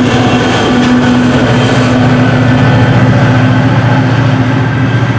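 Diesel locomotive of a GO Transit train running close by: a loud, steady engine drone with a constant hum over it.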